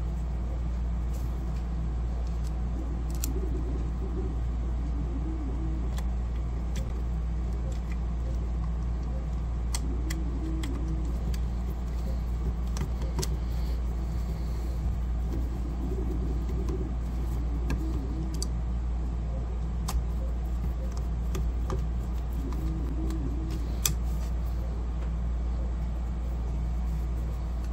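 A steady low rumble throughout, with a few faint, scattered clicks and taps from a screwdriver and small screws as a clear plastic dust-shoe mount is screwed onto a small CNC router's spindle motor.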